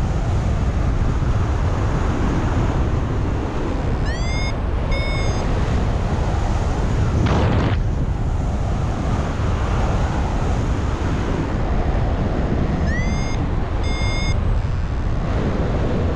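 Wind rushing over the camera microphone in paraglider flight, a loud steady buffeting. Twice, about four seconds in and again near the end, a short electronic chirp sounds: a tone sliding up, then a steady tone.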